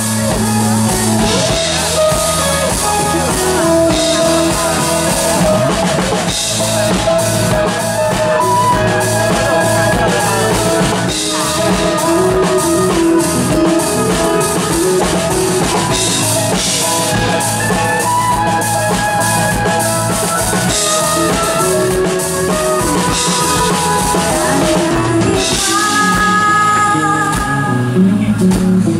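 Live pop band playing a song, with a drum kit keeping a steady beat under electric bass and keyboards.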